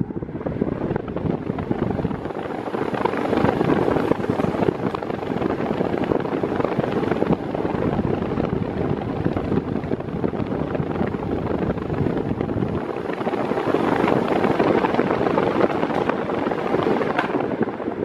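Mondial Turbo Force 8 desk fan running at top speed with a four-blade propeller in place of its eight-blade one: a loud, steady rush of air that builds over the first few seconds and then holds.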